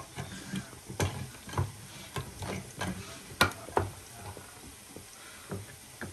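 Kitchen utensils clicking and knocking against dishes in irregular taps, roughly two a second, with one sharper knock about three and a half seconds in.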